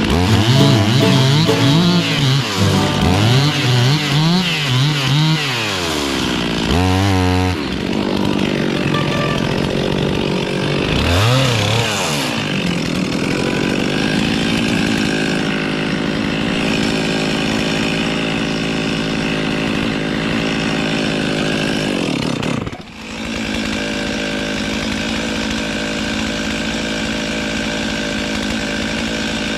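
Two-stroke chainsaw revving up and down several times, then running steadily at full throttle as it cuts into a Norfolk pine trunk. Near the end the engine dips for a moment and picks straight back up.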